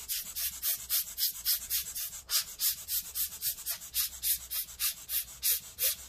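A brush scrubbing dust out of a laptop cooling fan in rapid short strokes, about five a second.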